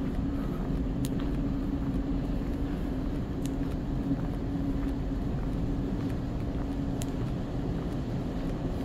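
Steady low drone with a constant hum, the air-handling background of a large indoor hall, with a few faint ticks.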